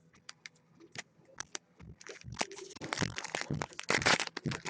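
Hockey trading-card pack wrapper being torn open and crinkled by hand: a few light clicks at first, then dense crinkling and tearing from about two seconds in, loudest near the end.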